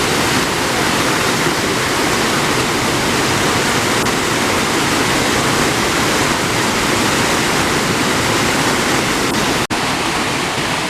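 Steady rush of water falling at Kapas Biru waterfall, cut off for an instant near the end.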